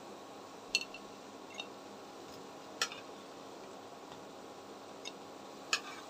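Steel spatula clicking against a frying pan and a ceramic plate as fried fritters are lifted out and set down: three sharp clicks about two to three seconds apart, with a few fainter taps between them.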